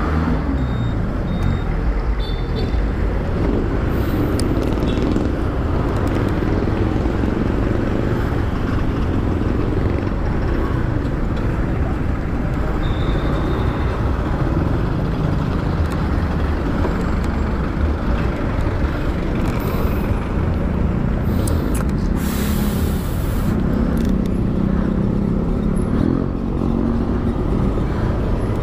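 Honda Airblade scooter running while riding through city traffic, with steady wind and road rumble on the microphone and other vehicles passing. A short, loud hiss comes about 22 seconds in.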